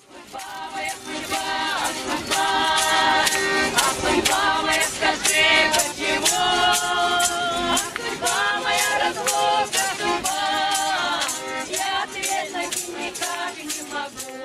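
Lively folk song: several voices singing together over a button accordion and a steady rattling percussion beat.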